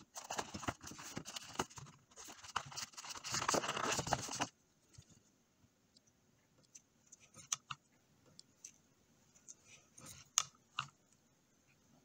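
Close scratching and scraping at the edge of a drone camera's lens ring, which stops abruptly about four and a half seconds in. After that come a few faint light clicks of a plastic pry tool against the lens housing, with two sharper clicks about ten seconds in.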